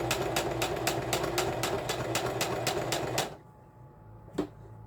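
Electric sewing machine stitching a waistband hem at a steady pace, about five stitches a second, then stopping a little past three seconds in. A single sharp click follows about a second later.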